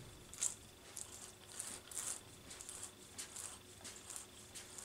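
Faint, scattered light clicks and rustles, about a dozen irregular ticks, from small parts being handled.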